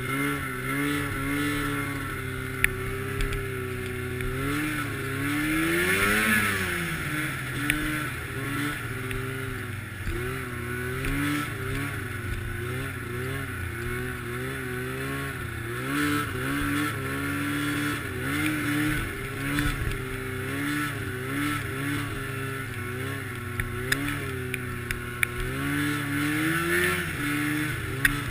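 Arctic Cat snowmobile engine running under throttle, its pitch rising and falling as the rider works the throttle, with the highest revs about six seconds in. A few short sharp knocks sound over it.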